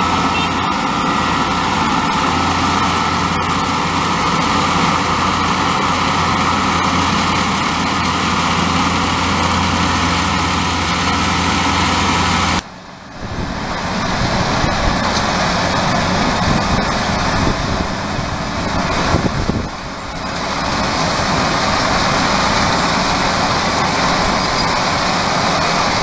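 Rice combine harvester running steadily while it cuts and threshes. About halfway through, the sound cuts abruptly to another recording of a combine at work, noisier and rougher.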